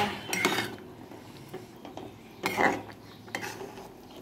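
A metal ladle knocking and scraping against an aluminium kadai while stirring curry, with about four sharp clanks, the loudest at the very start.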